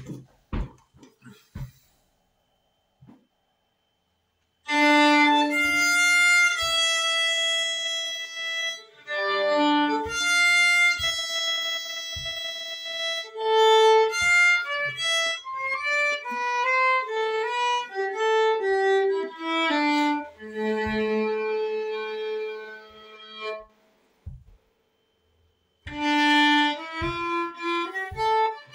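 Solo violin played with a bow: a melody of held and stepping notes starting about five seconds in, breaking off for a couple of seconds near the end, then starting again.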